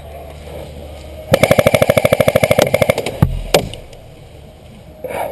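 Automatic airsoft gun firing a burst of about two seconds, a rapid even clatter of roughly fifteen shots a second over a steady motor-and-gearbox whine, starting about a second in. A single sharp crack follows shortly after.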